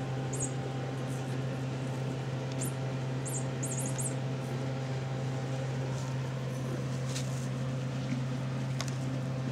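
A steady low hum, with a few faint light clicks in the first half.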